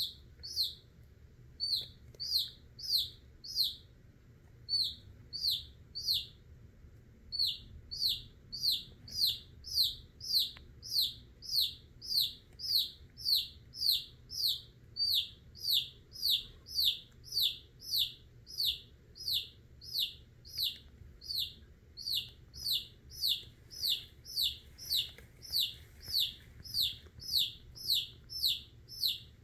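Domestic chick peeping loudly and over and over, about two falling peeps a second with a few short pauses, as it is held in a king snake's constricting coils. These are the chick's distress calls.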